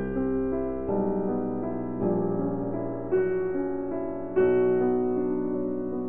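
Background piano music: chords and melody notes struck about once a second over held bass notes.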